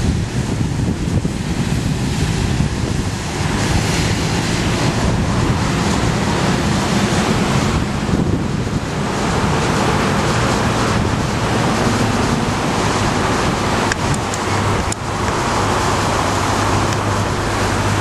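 Steady wind rushing and buffeting the microphone, with a low engine drone underneath and a couple of brief knocks near the end.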